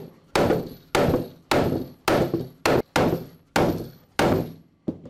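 Hammer blows on the scalloped edges of Flexco BR rivet solid-plate belt fasteners, about eight sharp metallic strikes roughly every half second, each with a short ring. This is the final set, hammering the plates down to compress the fasteners onto the belt.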